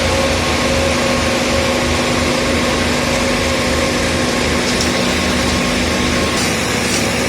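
Diesel-powered mobile concrete mixer pump running steadily, a constant engine-and-pump noise with a steady whine over it. The low rumble drops away about six seconds in.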